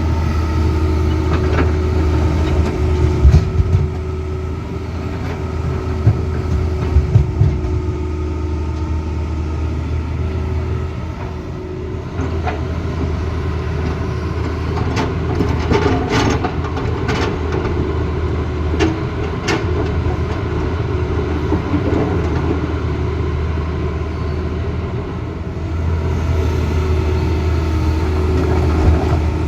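Tata Hitachi Zaxis excavator's diesel engine running steadily under load, a deep hum. Scattered sharp clanks and knocks come a few seconds in, around six to seven seconds, and in a cluster past the middle.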